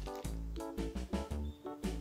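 Background music with a bouncing bass line, changing melody notes and drum hits.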